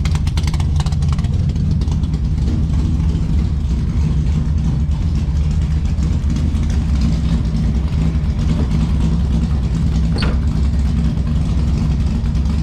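A cold engine idling steadily, just started after sitting through the winter, with one short high chirp about ten seconds in.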